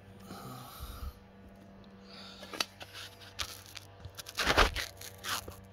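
Card packs and cards handled by hand: wrappers crinkling and rustling in short spells, with a few light taps. The loudest rustle comes about four and a half seconds in.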